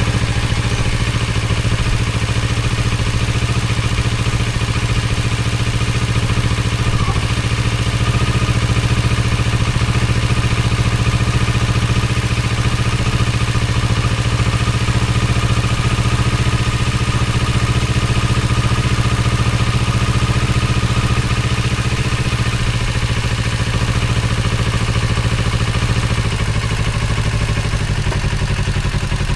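A 2024 Kawasaki Z650's 649cc liquid-cooled parallel-twin engine running steadily, left running so the drive chain spins while it is cleaned. Its note shifts slightly lower near the end.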